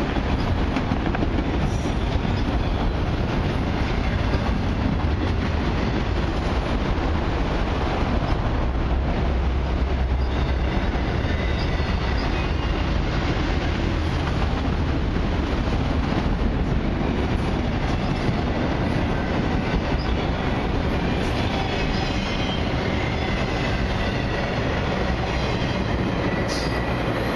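Autorack freight cars rolling past close by: a steady rumble of steel wheels on rail, with faint high wheel squeal in the later part.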